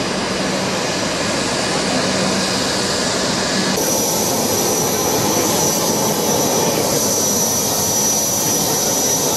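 Turbofan engines of an Embraer Legacy 650 business jet running as it taxis, a steady loud jet rush. About four seconds in it changes abruptly to a steady high-pitched whine over the rush, close to the parked jet.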